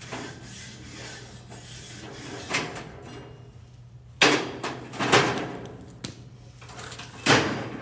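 A few loud knocks in the second half, with rubbing and scraping sounds between them.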